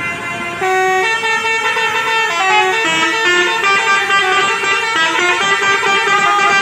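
Tour buses' basuri 'telolet' musical horns playing tunes, several stepping melodies overlapping at once in a horn battle; the sound grows louder about a second in.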